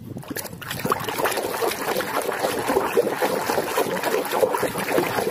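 Water sloshing and splashing in a plastic basin as a hand scrubs and swishes a mud-covered toy, a steady run of small splashes that starts a moment in.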